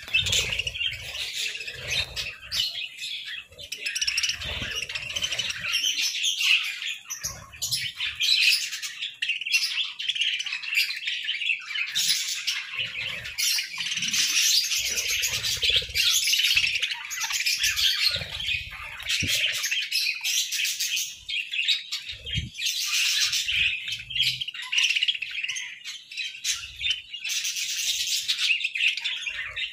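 A flock of budgerigars chirping and chattering all at once, a dense high-pitched chorus that never breaks.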